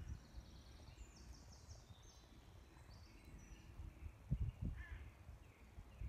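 Faint woodland birdsong: small birds singing thin high notes and short trills, with a single lower, harsher call about five seconds in. A low rumble runs underneath, with a couple of soft thumps a little after four seconds.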